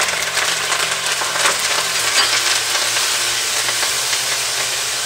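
Red chili paste sizzling in hot oil with curry leaves and cumin seeds, a spatula stirring and scraping it around the pan with many small clicks.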